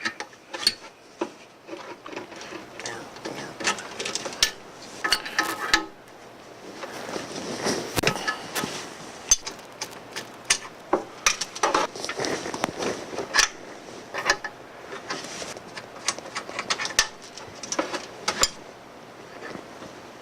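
Two open-end wrenches working the hose fittings on a diverter valve, loosening the hoses: irregular metallic clicks and clinks with scraping and rubbing between them.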